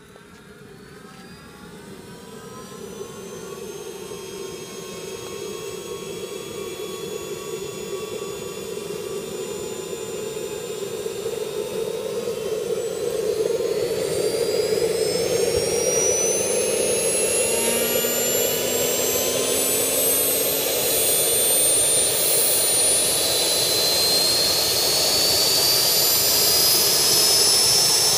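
JetCat P160 model jet turbine starting up: a whine of several tones that climbs steadily in pitch and grows much louder as the turbine spools up, with a step up in loudness about halfway through.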